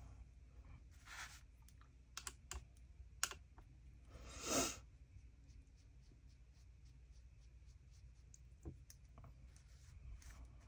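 Faint, scattered small clicks and taps with a few soft swishes from a round watercolour brush working on watercolour paper; the loudest swish comes about four and a half seconds in.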